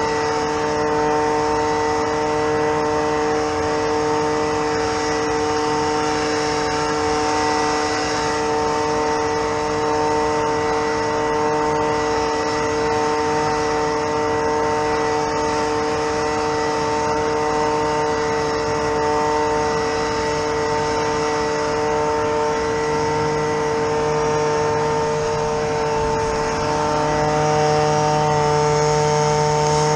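A motorised machine running steadily: a constant hum with several fixed pitches over a noisy drone. A deeper tone grows stronger in the last several seconds.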